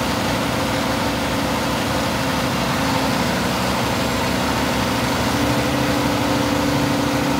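Heavy engine running steadily at a constant pitch, a low hum over broad mechanical noise.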